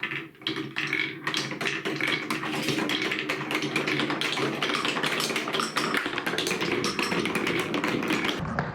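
Many marbles rolling and clicking along a plastic TrixTrack marble-run course: a dense, rapid clatter of small hard clicks over a rolling rumble. It starts suddenly.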